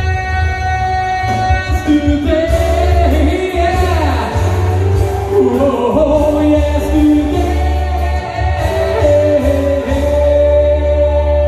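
A song with singing over a strong, steady bass and held notes.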